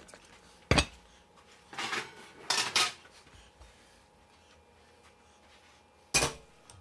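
Kitchen utensil and cookware noises: a sharp clink about a second in, two short scraping sounds around two seconds, and another sharp clink near the end.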